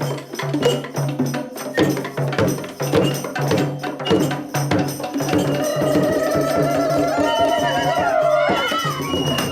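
Music with a steady beat of struck percussion. From about halfway, a long wavering held note slides slowly upward over the beat and breaks off shortly before the end.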